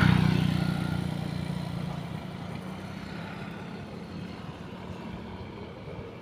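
A motor vehicle engine's low hum fades away over the first two seconds, leaving a faint, steady background rumble.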